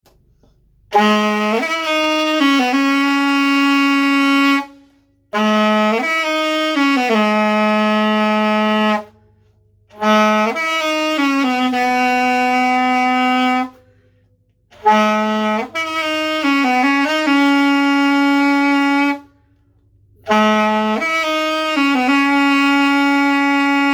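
Etude EAS-200 student alto saxophone played solo in five short phrases, with brief pauses between them. Each phrase runs through a few quick notes and settles into a long held note.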